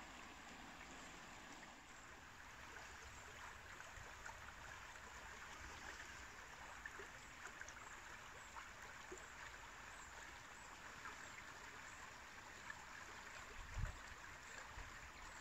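Faint, steady babble of a shallow river running over stones, with a brief low bump near the end.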